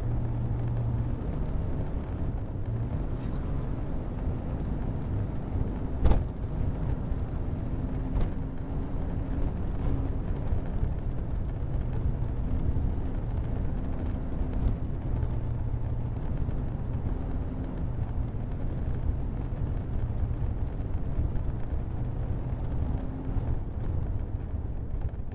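A motor vehicle running steadily, a low rumble with a faint hum, with one sharp click about six seconds in.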